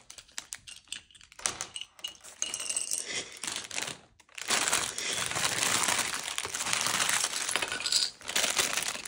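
Small plastic LEGO pieces clinking and rattling as a parts bag is opened and handled: scattered separate clicks at first, then a denser, steady rattle from about halfway through.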